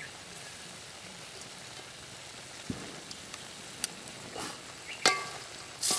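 Pieces of pork sizzling steadily in a wide metal pan, frying in the fat rendered from the meat itself, with a few light clicks and a soft thump as green chillies drop in. The sizzle gets louder just before the end.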